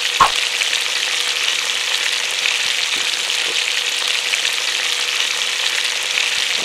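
Yellowtail frying in hot oil in a frying pan: a steady sizzle, with one sharp click about a quarter second in.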